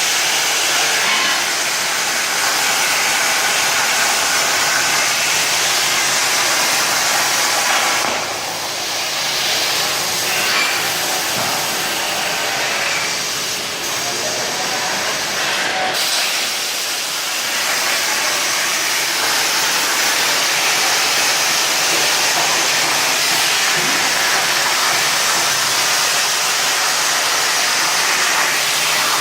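Procut 25 plasma torch on a CNC cutting table, giving a steady loud hiss of the air plasma arc as it cuts. The hiss eases slightly for a few seconds near the middle.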